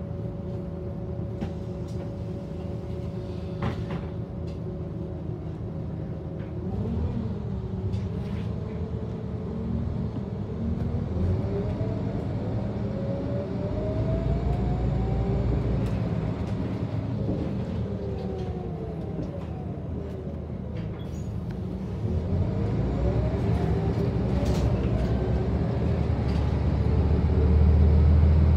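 Scania L94UB city bus heard from inside the cabin while driving: a steady low engine drone with a pitched driveline whine that rises as the bus accelerates and falls as it slows, several times over. Scattered light rattles are heard, and it gets louder near the end.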